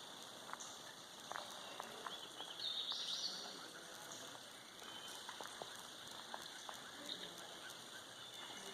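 Outdoor woodland ambience: a steady soft hiss with scattered light ticks and pops, and a high chirping call that peaks about three seconds in.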